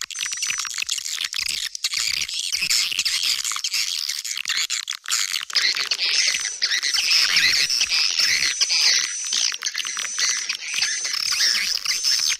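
Swiftlet lure call: dense, high twittering and chirping of swiftlets, with a short high note repeated over and over, played to draw swiftlets into a nesting house. The twittering thickens and grows louder about halfway through.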